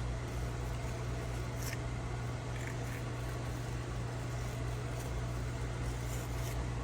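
A steady mechanical hum with a low drone and a faint hiss, unchanging, with a couple of faint light ticks.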